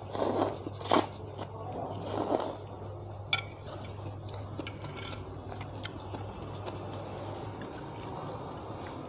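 A person eating noodles close to the microphone: slurping and chewing in the first couple of seconds, then scattered light clicks of metal chopsticks and a spoon against the bowl. A steady low hum runs underneath.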